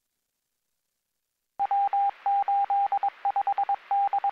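Morse code identifier on a police radio channel: a steady beep keyed in dashes and dots over radio hiss, starting about one and a half seconds in after near silence. It is the kind of automatic station identification a radio repeater sends in Morse code.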